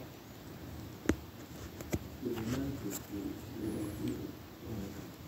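A faint, muffled voice in short wavering phrases, with two sharp clicks about one and two seconds in.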